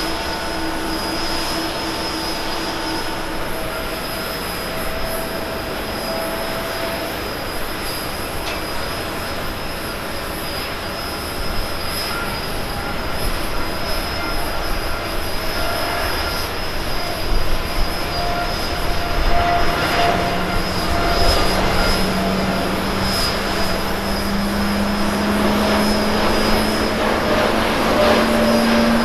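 Jet airliner engines at takeoff thrust: a Boeing 777 climbing away, then a Boeing 787-8 on its takeoff roll. The noise grows louder through the second half, with an engine tone that slowly rises in pitch near the end.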